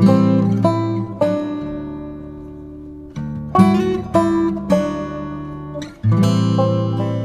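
Background music: an acoustic guitar strumming and picking chords that ring and fade, struck afresh every second or so.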